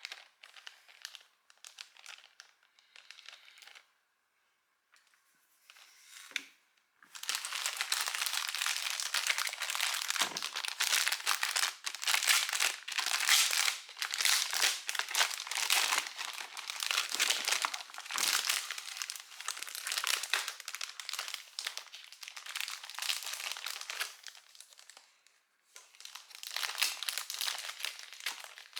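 Packaging wrapper being handled and crinkled. There are faint scattered rustles at first, then continuous loud crinkling from about seven seconds in, with a short pause near the end before it starts again.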